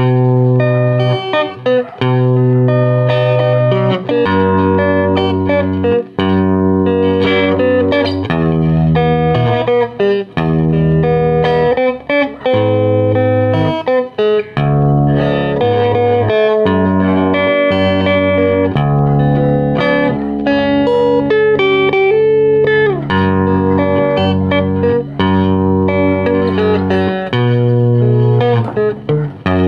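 Electric guitar played continuously, a picked melody over low bass notes that change about once a second, with one sliding note about two-thirds of the way through.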